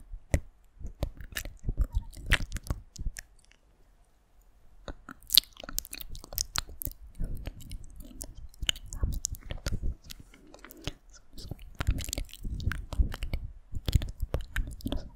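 Close-miked ASMR mouth sounds: quick, irregular wet clicks and smacks, with a short lull about four seconds in.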